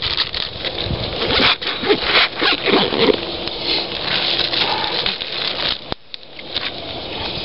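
Zipper of a soft cooler bag being pulled shut, mixed with a plastic tortilla bag rustling and crinkling as it is handled. The rustling stops abruptly about six seconds in.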